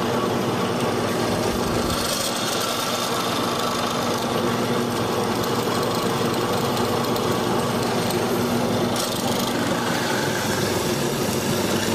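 A drill press motor runs steadily while a hollow-chisel square-hole mortising bit is plunged into wood, cutting a mortise. The hum is even, with slight changes in the noise around two seconds in and again near nine seconds.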